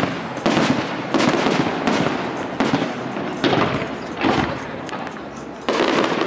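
Aerial firework shells bursting in quick succession: about eight sharp bangs, each trailing off in a rumble and crackle, with a longer pause before the last bang near the end.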